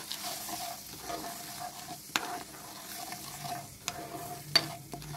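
Metal spoon stirring milk and sugar in a non-stick frying pan, scraping round the bottom of the pan, with three sharp clinks of the spoon against the pan.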